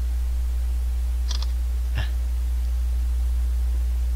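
Steady low electrical hum on the microphone, with a short clicking about a second in and one more click about two seconds in, as a smartphone camera takes a photo.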